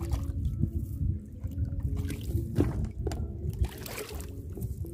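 Water trickling and splashing in a shallow muddy field ditch, with a few sharper splashes, over a low rumble.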